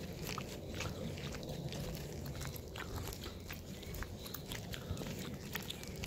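Footsteps of a walker and three Great Danes crunching on a gritty, gravel-strewn path: irregular small crunches and clicks, several a second, over a low steady rumble.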